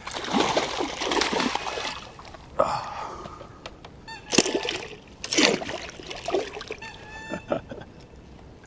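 Small jack pike splashing and thrashing in the shallow water at the bank's edge as it is drawn in on the line and grabbed by hand. A churning splash at the start is followed by several sharp, separate splashes.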